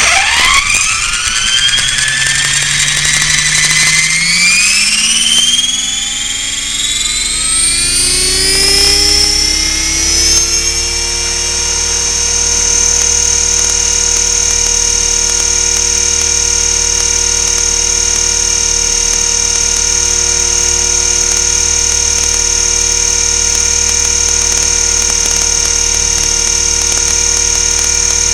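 Align T-REX 500 electric RC helicopter spooling up: the motor and gear whine rises in pitch over about the first ten seconds, then holds as a steady high whine.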